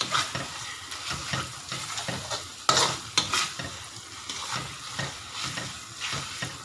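Chicken and chili paste sizzling in hot oil in a wok while being stirred with a spatula. The spatula scrapes along the pan in irregular strokes, with a couple of sharp clacks against the wok near the middle.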